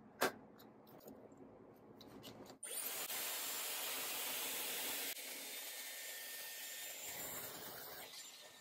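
A few sharp clicks, then a Dyson Airwrap hair styler blowing air through its attachment with a steady high whoosh. The whoosh steps down in level about halfway through and dies away near the end.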